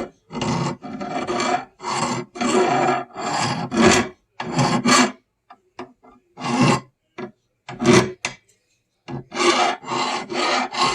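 A hand file rasping over the tip of a steel pickaxe in repeated strokes, with a couple of short pauses midway, sharpening the bent side of the point.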